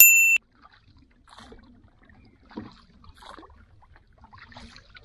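A short, loud electronic beep lasting under half a second, starting and stopping sharply, followed by faint scattered small sounds from the boat on the water.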